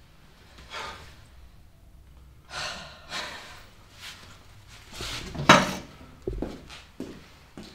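A person's heavy breathing and gasps in a small room, a few short breaths in a row, with the loudest gasp about five and a half seconds in, followed by a low thump.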